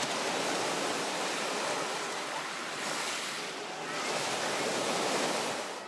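Small sea waves washing up over a pebble beach and drawing back, a steady wash that swells near the start and again near the end.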